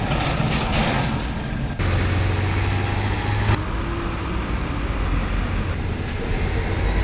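Outdoor street ambience: a steady rumble of engine and traffic noise with a low hum. It changes abruptly about two seconds in and again at three and a half seconds.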